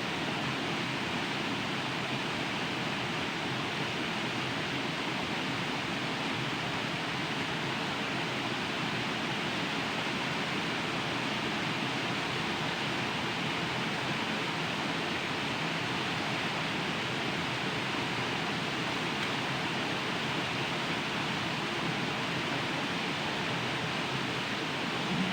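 A waterfall's falling water makes a steady, unchanging rush.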